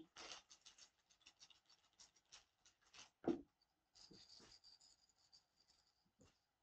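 Faint scratching and rustling as a four-week-old retriever puppy moves about on a blanket among toys, with one soft knock a little over three seconds in and a brief faint rattle of a shaken toy about four seconds in.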